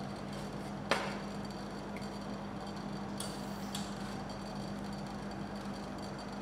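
Steel spatula on the chilled steel plate of a rolled-ice-cream pan: one sharp tap about a second in, then a short scrape just after three seconds, over the pan's steady low hum.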